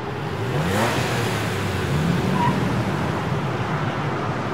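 Road traffic: a motor vehicle's engine rising steeply in pitch about a second in as it speeds up, over a steady wash of traffic noise.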